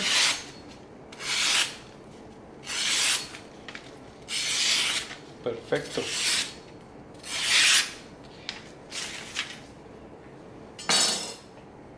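A freshly sharpened kitchen knife slicing through a hand-held sheet of paper in repeated strokes, about eight short rasping hisses spaced a second or so apart; the edge cuts the paper cleanly.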